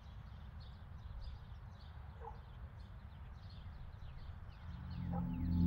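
Small birds chirping repeatedly, faint, over a low outdoor rumble. Near the end a low, ringing musical drone swells up and grows loud.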